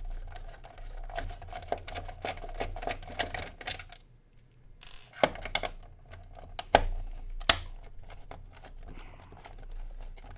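Screws being backed out with a Phillips screwdriver: a rapid run of small clicks, then after a short pause several sharp plastic-and-metal knocks as the UPS case is handled and opened.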